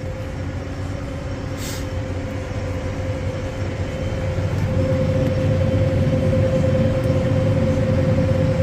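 Swather running steadily while cutting barley: a low engine drone with a constant whine, both growing louder about halfway through.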